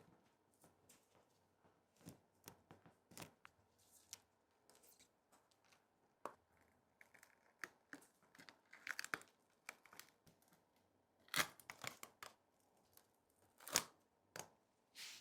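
Scattered faint clicks and short scraping, tearing sounds of small hand tools working on a Samsung Galaxy S23 Ultra's cracked back, with two louder sharp clicks in the last third.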